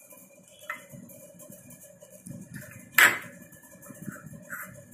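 A metal spoon clinks sharply against the bowl once, about three seconds in, as it scoops up a rasgulla, after a lighter tap about a second in. A faint steady hum runs underneath.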